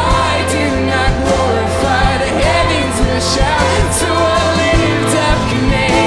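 A Christian worship band playing a song: a man singing lead over guitars, keyboard and bass, with the bass note changing about five seconds in.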